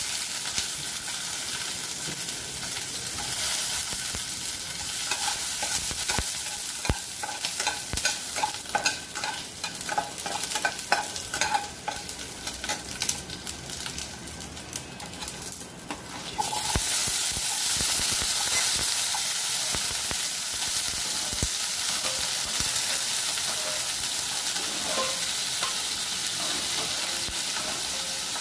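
Chopped garlic sizzling in a little hot oil in a nonstick pan, with a steel spatula scraping and clicking against the pan. About sixteen seconds in, the sizzle suddenly gets louder and hissier as chopped potatoes and onions go into the hot oil.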